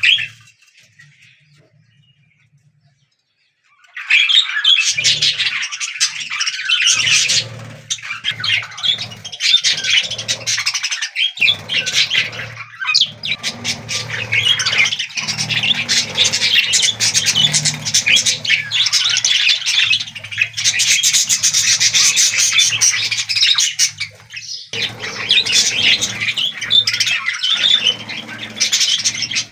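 Budgerigars chattering and squawking inside a nest box: a dense, rapid run of high, scratchy calls that starts about four seconds in and goes on with short breaks, over a low steady hum.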